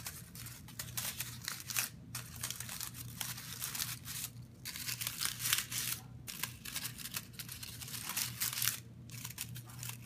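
Paper cupcake liners being crumpled and scrunched by hand into a flower shape, crinkling in spells with a few short pauses between.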